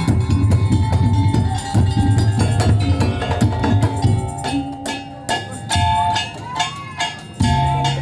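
Madurese tongtong (daul) percussion music: drums and wooden slit-drum beats played fast and dense, thinning to sparser strikes about halfway through, with short held melody notes above them.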